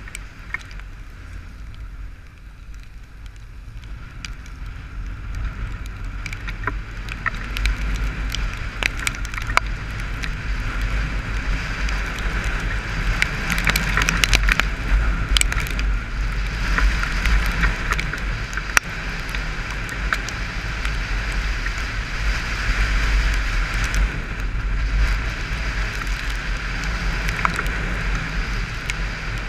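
A Honda motorcycle being ridden in the rain, heard from a camera mounted on the rider: wind buffets the microphone with a low rumble and road noise. The whole sound grows louder over the first dozen seconds as the bike picks up speed, with a faint engine note rising in pitch. Scattered sharp ticks run through it, from raindrops striking the camera.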